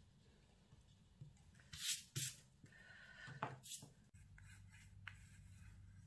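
A pencil working on watercolour paper: faint, short scratchy strokes about two seconds in and again near four seconds.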